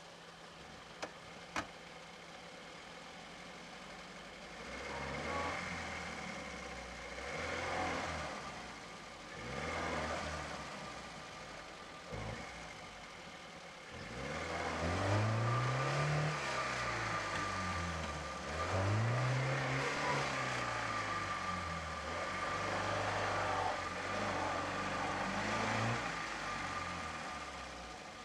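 UAZ-469's four-cylinder petrol engine revved up and down again and again, in swells at first and then almost without a break, as the stuck jeep tries to climb out of a sandy rut. Two sharp clicks come about a second in.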